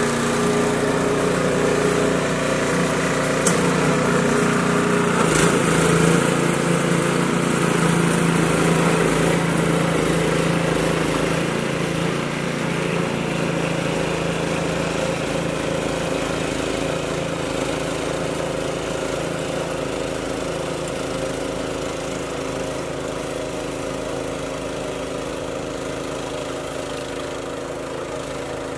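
Gasoline snowblower engine running steadily while clearing snow, growing gradually fainter as the machine moves away.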